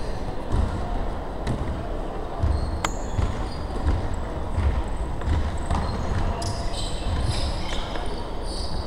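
Indoor basketball game: the ball bouncing and players' feet thudding on the hardwood court, with short high sneaker squeaks, mostly in the second half, and scattered voices in the echoing gym.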